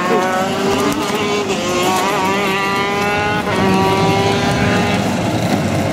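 Two-stroke racing kart engines running at high revs, a high-pitched note that slides gently down, breaks off and is taken up again by another engine twice.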